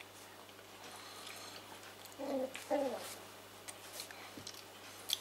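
Cavalier King Charles spaniel puppy chewing and mouthing on a child's shoe: small scattered clicks and scrapes, with two brief voice-like sounds about two seconds in.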